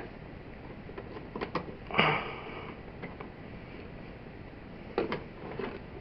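Faint clicks and handling noise of fingers twisting a plastic wire nut onto the dimmer switch's green ground wire and a bare copper ground wire in a wall box, with a short noisy rustle about two seconds in.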